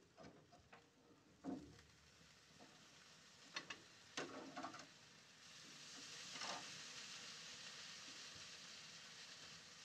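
A few light knocks and clicks of a utensil against the grill grate, then pork ribs glazed in barbecue sauce sizzling on the hot smoker grate, a steady hiss that swells about six seconds in and holds.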